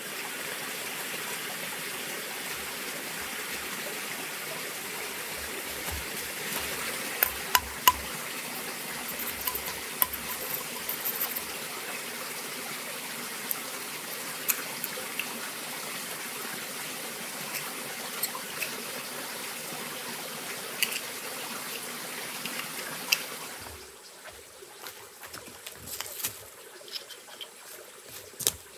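Steady running water of a small forest stream, with scattered sharp taps of a knife working bamboo. About 24 seconds in the water sound cuts off, leaving irregular scrapes and knocks of a machete digging into soil.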